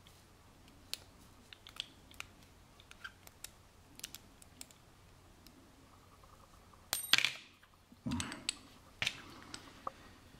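Lock-picking tools working a Chinese wafer padlock: faint small metal clicks and scrapes as a pick moves the wafers under pry-bar tension. About seven seconds in comes one loud metallic clack that rings briefly, followed by a few more clacks.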